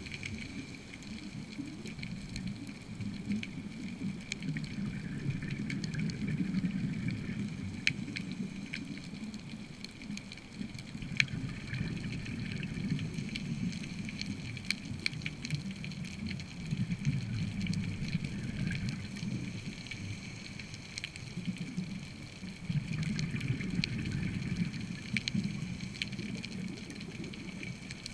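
Underwater ambience recorded on a dive: a low rumble that swells and fades every five or six seconds, with scattered sharp clicks.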